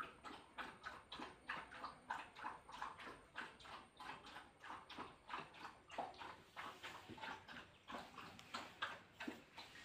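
Dog panting rapidly and steadily, about three breaths a second.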